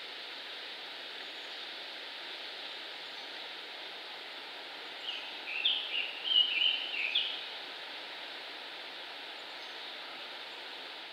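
A bird sings a short phrase of several quick high notes about five seconds in, lasting a little over two seconds, over a steady outdoor background hiss.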